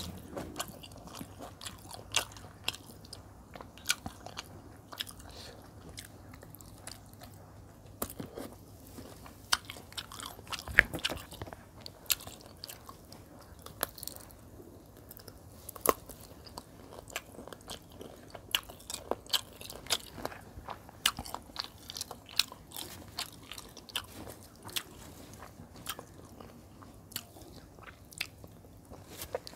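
A person chewing and biting into chicken-leg curry and rice eaten by hand, picked up by a lapel microphone, with many sharp mouth clicks at irregular intervals, the loudest about eleven and sixteen seconds in.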